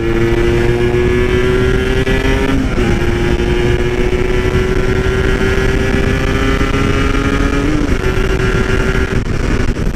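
Two-stroke motorcycle engine under way, pulling with its pitch slowly rising, with two brief dips about two and a half and eight seconds in as it shifts up, over wind and road noise.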